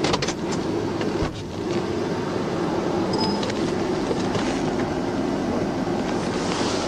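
Steady engine and road noise of a moving car, a constant low drone, with a few short clicks about half a second in.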